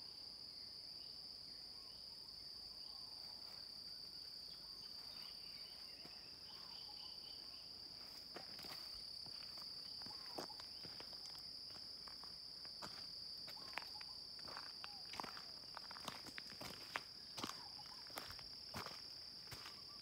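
A steady high-pitched insect drone, cricket-like, runs on unbroken. From about eight seconds in, crunching footsteps on a gravel road join it, becoming more frequent toward the end.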